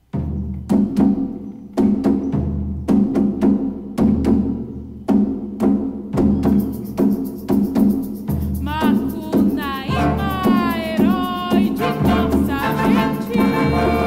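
Percussion ensemble playing: deep drum strokes about once a second with struck accents between them. From about nine seconds in, sliding high-pitched tones join over the drumming.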